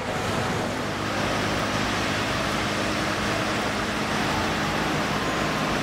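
MAN concrete mixer truck's diesel engine running steadily as the truck drives along the road, a constant low engine hum under a broad hiss of road and tyre noise.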